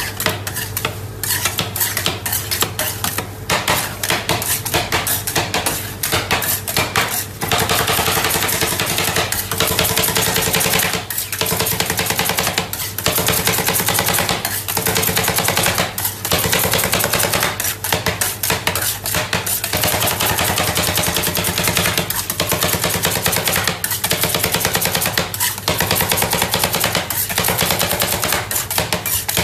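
Spatulas chopping and scraping rapidly against a stainless-steel cold plate, a fast continuous clatter of strikes over a steady low hum. This is rolled (stir-fried) ice cream being made: chocolate is chopped into the cream base as it freezes on the plate.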